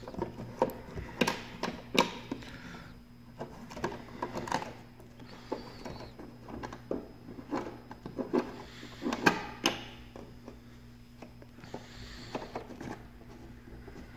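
Plastic housing of an SL-2000-P duct smoke detector being handled and opened by hand: scattered clicks and knocks with a few short scraping rustles, over a faint low steady hum.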